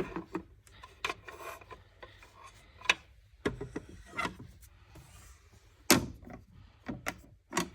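Dolls and dollhouse pieces being handled: a scatter of light knocks and taps, with some rubbing and scraping between them.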